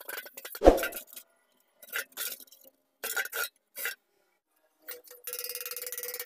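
Steel Honda CD 70 motorcycle fuel tank being handled, giving metal clinks and knocks, with one heavy thump just under a second in. About five seconds in, a steady, rapid metal scraping starts as a steel rod works inside the tank.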